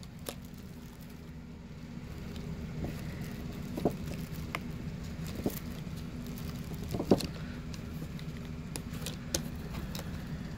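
Scattered light clicks and knocks from handling a plastic pinwheel on a wooden stick set into a board, the loudest about seven seconds in. A steady low hum runs underneath.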